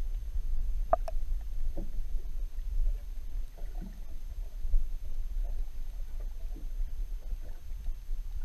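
A boat on the water: a steady low rumble with scattered faint knocks and splashes, and a sharper click about a second in.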